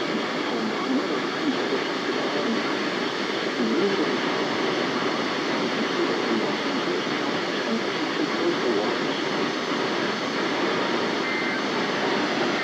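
Steady hiss of radio static from a receiver, even and unbroken, with no tone or voice in it.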